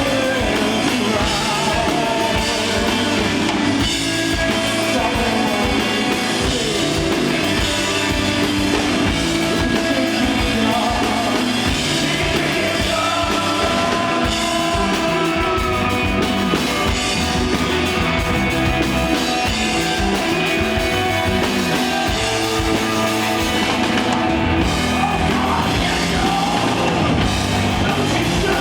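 Live rock band playing a song on stage, with a drum kit, bass guitar and electric guitar.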